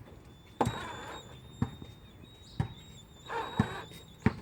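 A series of sharp knocks and clicks, about one a second, with a faint high steady tone under them.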